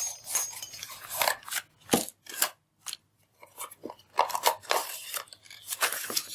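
Packaging of a small microphone box being handled and opened: irregular clicks, crinkles and scrapes of cardboard and plastic.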